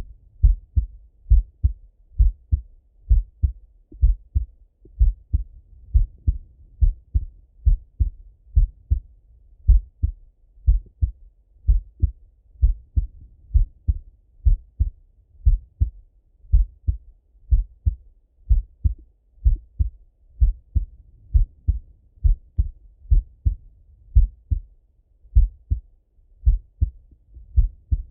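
A man's resting heartbeat heard through a Littmann stethoscope: slow, even lub-dub thumps at about one beat a second, each a pair of deep, muffled knocks.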